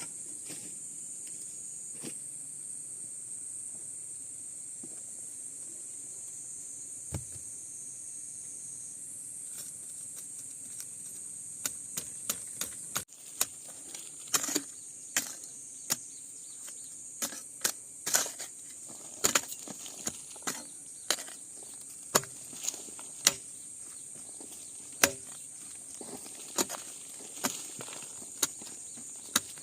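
Steady high-pitched insect chorus, with a run of short sharp knocks, roughly one a second, starting about halfway through.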